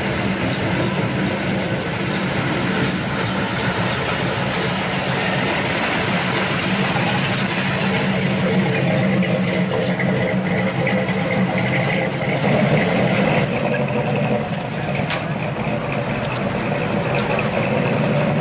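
The V8 engine of a 1972 Chevy Nova SS pro street car is running steadily at low revs through its exhaust. Its tone changes about two-thirds of the way through.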